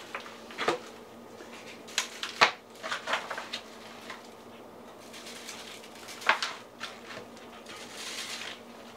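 Scattered clicks and taps of a plastic seasoning shaker bottle being handled and shaken over raw chicken in a foil pan, with a soft rustling hiss near the end.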